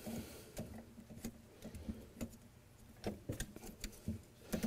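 Faint, irregular light clicks and small knocks of hand work on the hydraulic pump's hose connections, as the hose-retaining bolts are set by hand, over a low steady hum.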